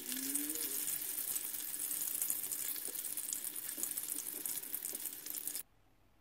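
Spring rolls deep-frying in a wok of hot oil: a steady sizzle full of fine crackling pops. It cuts off suddenly near the end.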